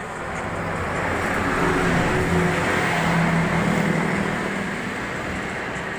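A motor vehicle running, its engine and road noise swelling to a peak about halfway through and then fading.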